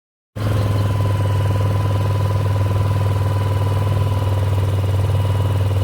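Boat engine running steadily with a strong, even low hum and a steady higher whine above it.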